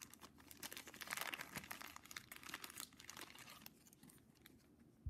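Faint crinkling and rustling of a trading card and its clear plastic sleeve being handled, with soft clicks, busiest in the first three seconds and fading out near the end.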